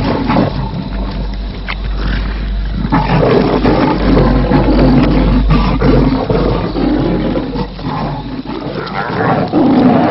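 Lions growling aggressively at a leopard treed on its kill: a continuous run of loud, rough calls, one after another.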